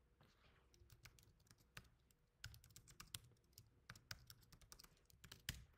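Faint typing on a computer keyboard: an irregular run of quick keystrokes, with one louder key press near the end.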